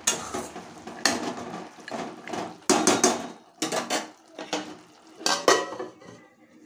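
Wooden spatula stirring a bottle gourd curry in a metal pan, scraping and knocking against the pan in several separate strokes. Near the end a metal lid is set down on the pan.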